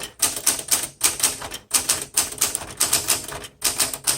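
1968 Smith Corona Super Sterling manual typewriter being typed on: quick runs of key strikes, several a second, with two short pauses.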